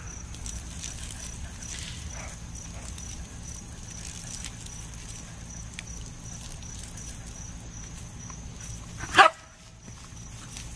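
A Shetland sheepdog gives a single sharp bark about nine seconds in, over a low steady outdoor hiss.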